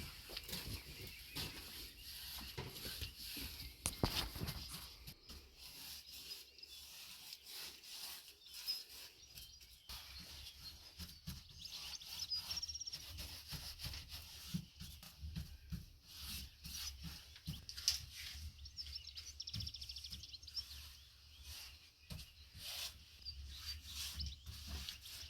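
Birds chirping faintly over steady outdoor background noise, with scattered light clicks and knocks.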